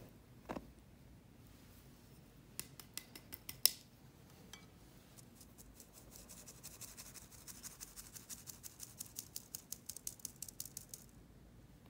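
Flour dropping into a stainless steel mesh sieve with a soft thump. Then the sieve is tapped and shaken over a glass bowl to sift the flour: a few sharp metallic ticks, then a fast, even run of light ticks, about five a second, which stops about a second before the end.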